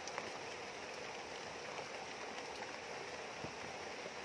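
Steady rain falling, with the rush of a shallow, rocky river underneath and a few faint drop ticks.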